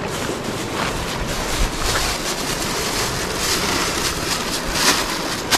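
Steady rushing noise of wind on the microphone and a flowing river, with a sharp click shortly before the end.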